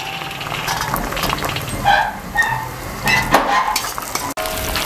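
A spoon stirring green peas into sizzling onion masala in a large kadhai, scraping and knocking against the pan, with a couple of short ringing clinks about two seconds in.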